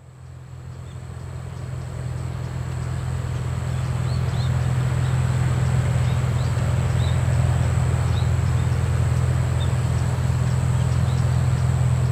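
Light propeller plane's piston engine running steadily at low power, growing louder over the first few seconds, with small birds chirping now and then.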